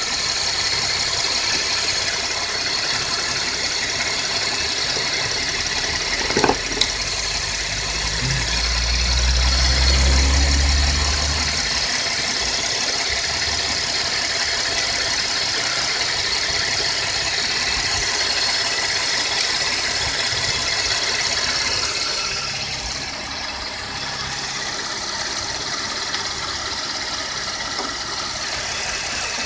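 2013 Chevy Impala's 3.6-litre V6 idling steadily, heard from the open engine bay. A single click comes about six seconds in, and a deeper low rumble swells for a few seconds soon after.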